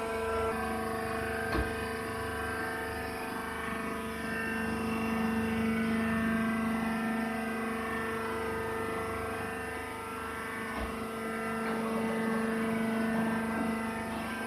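Fully automatic wood shaving baler running: a steady mechanical drone with a held hum, swelling slightly at times.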